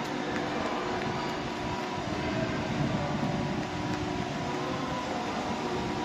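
Steady machinery hum in a winery tank hall: a constant rumbling noise with a few faint steady tones running through it.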